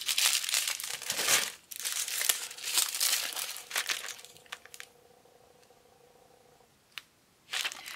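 Crinkling plastic as small bags of diamond-painting drills are handled, in several rustling bursts over the first four seconds or so. Then near quiet, broken by a single sharp click, before the rustling starts again near the end.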